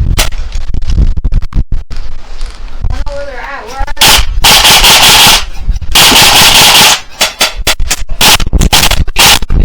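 Airsoft electric gun firing two long full-auto bursts, each about a second or more, about four and six seconds in. Scattered sharp snaps of single shots come before and after.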